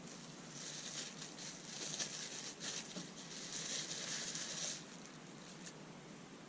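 Rustling of packaging being handled, with several light clicks, stopping about five seconds in.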